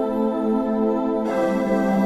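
Calm new-age ambient background music: sustained synthesizer or organ-like chords, changing to a new chord about a second and a half in.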